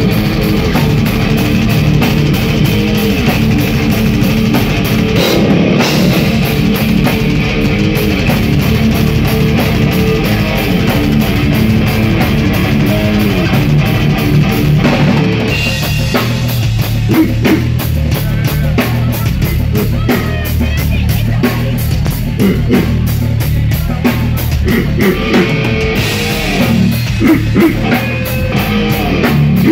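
Metal band playing live and loud: distorted electric guitar, bass and drum kit. About halfway through, the cymbals drop out and the playing turns choppier; the full band sound comes back in a few seconds before the end.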